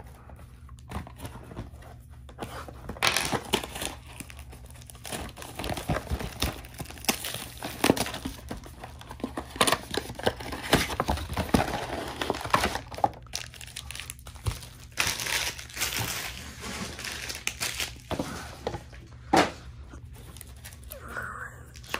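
Cardboard trading-card box being torn open and its foil-wrapped card packs pulled out and handled: irregular crinkling, rustling and tearing.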